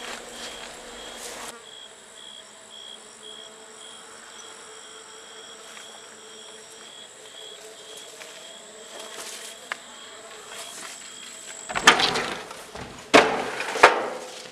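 Night insects chirping steadily, a high pulsing trill with a thin steady whine above it. Near the end, a few loud, sharp clattering knocks break in.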